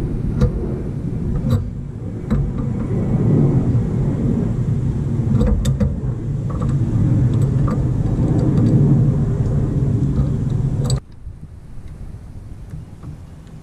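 A loud, steady low rumble with a hum in it, with scattered sharp clicks and knocks of hand tools against metal; the rumble cuts off suddenly about eleven seconds in.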